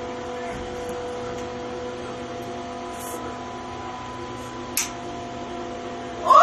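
A steady hum of several fixed tones over a constant hiss, with one brief click about five seconds in.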